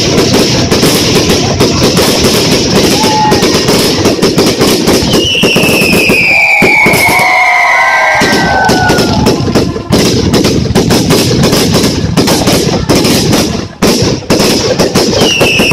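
Fireworks bursting and crackling in a dense, continuous barrage. A long falling whistle sounds about five seconds in, and another begins near the end.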